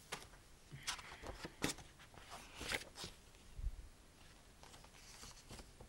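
A picture book being handled: quiet rustling of the pages and cover with a few light taps as it is picked up and turned.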